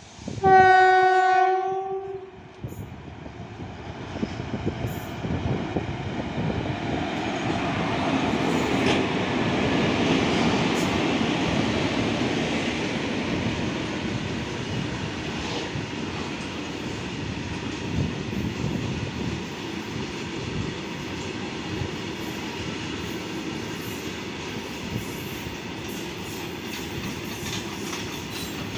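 Horn of an Indian Railways WAG-5HA electric freight locomotive, one short blast, then the goods train running past, its wagons rumbling and wheels clacking over the rail joints. The rumble builds to its loudest about ten seconds in and then holds steady.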